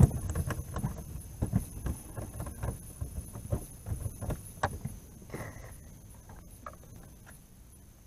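Irregular knocks and bumps from handling gear around a cooler on a small fishing boat, thick in the first few seconds and thinning out after about five seconds.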